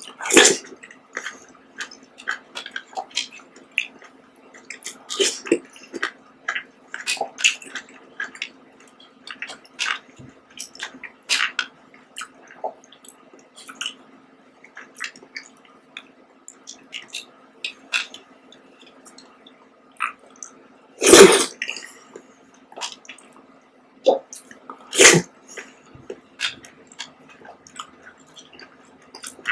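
Close-up eating of grape-topped jelly: wet slurps, squelches and chewing of soft jelly and red grapes, with light clicks of a spoon scooping in plastic cups. The loudest slurps come near the start and about two thirds of the way through.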